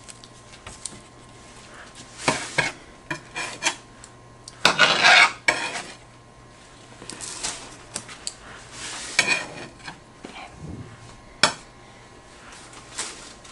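Serrated bread knife sawing through a rolled log of cinnamon-roll dough, with scattered scrapes, taps and clinks of the knife against the board and a metal baking tray. The sounds come irregularly, the longest stretch of scraping about halfway through.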